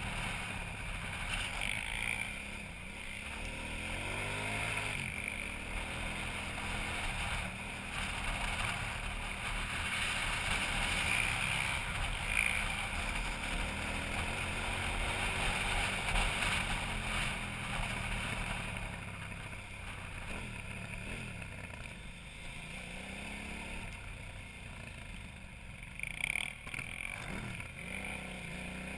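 KTM 990 Adventure's V-twin engine running under way on a dirt track, its revs rising and falling with the throttle, with wind noise on a helmet-mounted camera's microphone.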